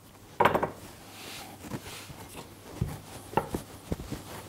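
A rolling pin rolling out crumbly shortcrust dough on a floured worktop. There is a short scuff about half a second in, then several light knocks and taps in the second half as the pin is pushed and set down.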